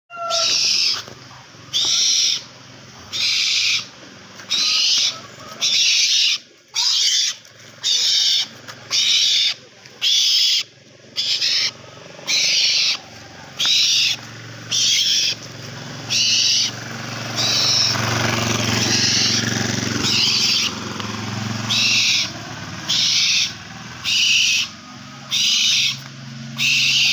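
An owl hissing: harsh, rasping calls of about half a second, repeated roughly once a second without a break. A low rumble rises underneath for a few seconds in the middle.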